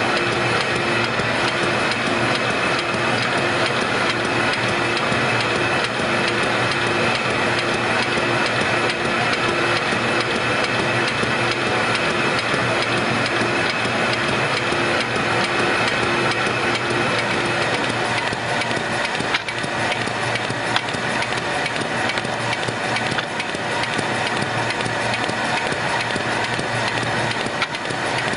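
Kirk-Rudy mail-processing machine running, its feeder and belt transport carrying printed mail pieces through with a steady mechanical whir. A pulsing hum in the mix stops about two-thirds of the way in, and a few sharp clicks follow.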